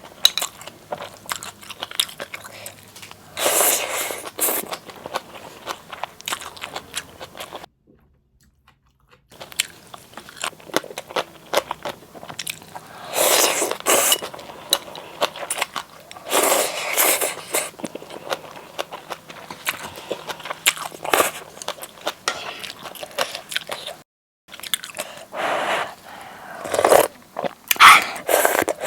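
Close-miked eating sounds of a person chewing and biting into spicy seaweed-soup noodles and half-boiled eggs: wet chewing clicks with several louder noisy bursts about a second long. The sound cuts to dead silence twice, briefly.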